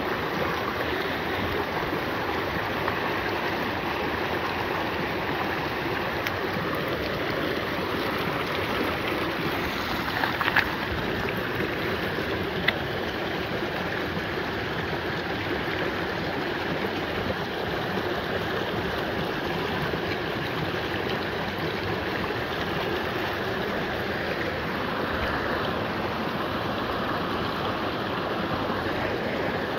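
Shallow glacier-runoff stream rushing steadily over a rocky cobble bed. Two brief clicks sound about a third of the way in.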